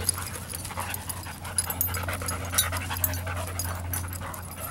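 Two dogs jowl-playing and wrestling, mouthing at each other, with short sharp clicks scattered throughout. A steady low hum runs underneath.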